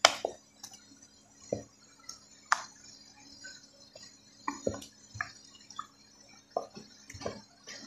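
Spoon stirring a watery spinach and potato curry in a metal pot: irregular wet slops and drips with light knocks of the spoon against the pot every second or so.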